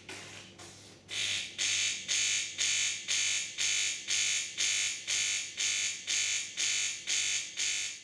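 De'Longhi Magnifica ESAM4200 coffee machine's pump making a loud buzzing noise, pulsing about two to three times a second after a softer first second, while no water is delivered. This is the sign of an air blockage in the water circuit during the start-up rinse cycle.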